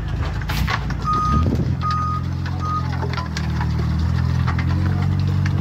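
Reversing alarm on a self-loading concrete mixer beeping three times at one steady pitch, over the machine's engine running steadily.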